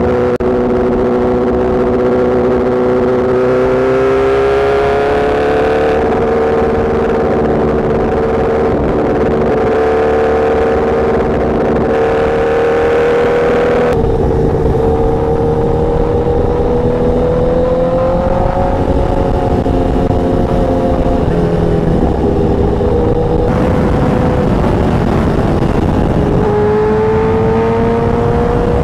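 Superbike inline-four engine running at high revs at speed, its pitch climbing slowly as the bike accelerates and easing off about two-thirds of the way through, with wind rush over the microphone. The sound changes abruptly about halfway through and again near the end, where it picks up lower and climbs again.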